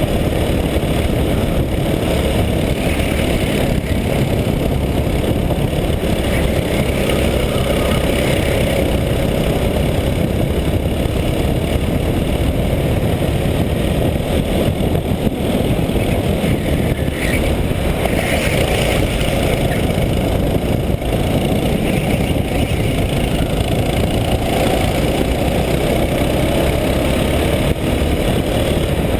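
Go-kart engine running at racing speed through the corners, heard from a camera mounted on the kart, mixed with steady wind and road noise.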